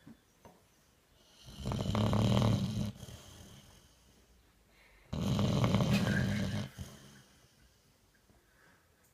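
Bull boxer dog snoring: two loud snores, each about a second and a half long and about three and a half seconds apart.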